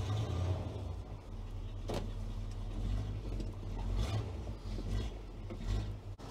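1975 Chevrolet C20 pickup's engine idling steadily just after a cold-morning start, left to warm up. A few short clicks sound over the idle, about two and four seconds in.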